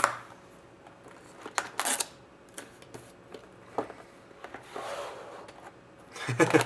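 Hockey cards and their packaging being handled: scattered light clicks and short rustles, with a brief soft scraping hiss about five seconds in.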